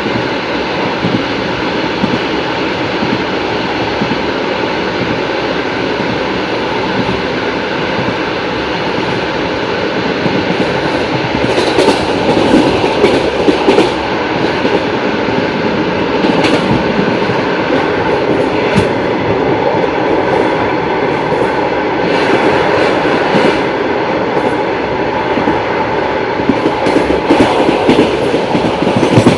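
Passenger train wheels clattering over rail joints at speed: a steady rolling rumble with rhythmic clacks. The clacks grow louder and sharper about a third of the way in.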